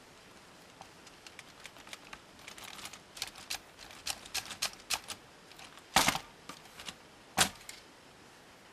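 Plastic LEGO Technic buggy being pushed down and handled, its parts and suspension giving off a rapid run of small clicks and rattles, with two louder knocks about a second and a half apart near the end.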